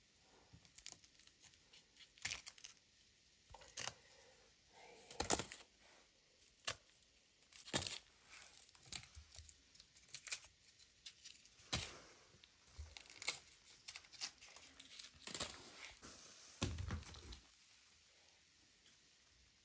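Faint, irregular clicks, knocks and rustles of hands handling roasted potatoes at a clay tandoor and dropping them into plastic baskets on cardboard, with a heavier low thud near the end.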